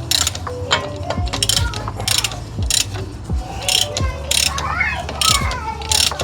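Hand socket ratchet worked in about a dozen short strokes, its pawl rasping on each back-swing, while the outer lock nut on a Suzuki Sierra front wheel bearing is tightened down.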